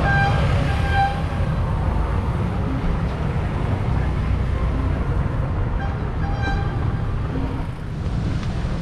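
Outdoor street sound: a steady low rumble of passing traffic and wind on the microphone. Over it come short, high-pitched beeping tones, once just after the start and again about six seconds in.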